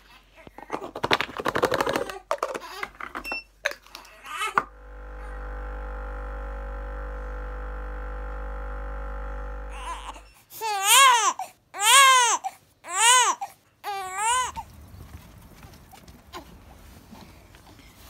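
Clicks and rustling as a formula powder dispenser is handled, then a bottle-making machine runs with a steady hum for about five seconds. About eleven seconds in, a baby cries in four wails, each rising and then falling in pitch.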